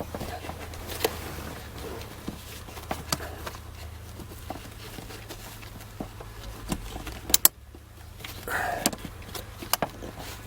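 Scattered plastic clicks, taps and rattles as a Saturn S-series sunroof switch and map-light housing is worked loose and its wiring snaked out of the headliner, with two sharp snaps a little past seven seconds in.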